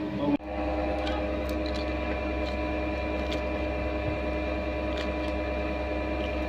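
A steady mechanical hum of a running motor or engine, with several fixed tones. A few faint ticks sound over it as a knife slices through green chilli held in the hand.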